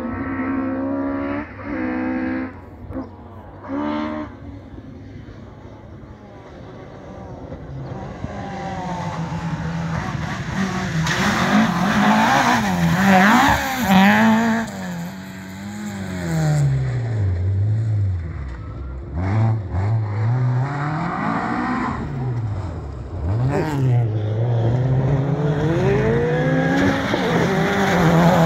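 Rally cars driven hard on a gravel stage: a Ford Escort Mk2 comes through, its engine revs climbing and falling with the gear changes and loudest about halfway. Then a Mitsubishi Lancer Evolution approaches, revving up and down through the gears and loudest at the end.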